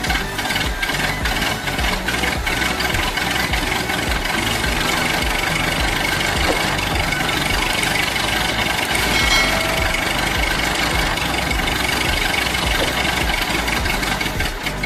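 An engine running steadily, with a knocking rattle.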